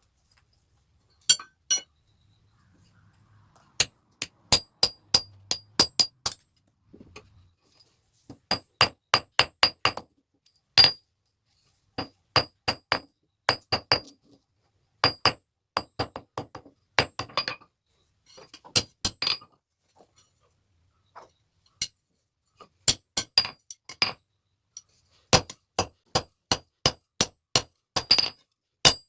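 Blacksmith's hammer striking metal on an anvil in runs of quick ringing blows, about three a second, with short pauses between the runs.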